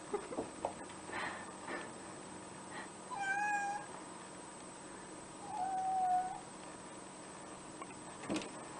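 Domestic cat meowing twice, two short, fairly steady-pitched meows about two seconds apart, the second a little longer. A few light knocks and rustles come in the first two seconds, and a single sharp click near the end.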